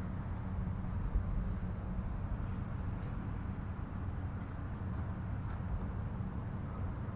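Steady low hum and rumble of a car rolling slowly, heard from inside the cabin, with a faint high pulsing chirr in the background.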